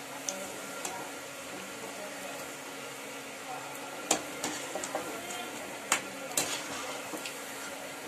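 Gram-flour bonda fritters deep-frying in hot oil in a metal kadai, with a steady sizzle. A metal slotted spoon clinks and scrapes against the pan several times as the fritters are turned.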